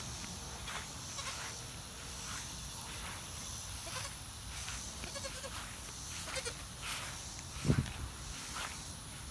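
Young goat kid giving a few short bleats, with footsteps in grass and a single low thump about eight seconds in.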